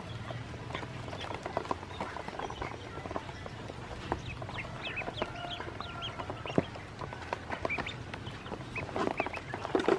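A brood of ducklings peeping in many short, high, rising calls while they dabble and peck feed in shallow water in a plastic basin, with lots of small clicks and splashes. The peeping and pecking get busier and louder near the end.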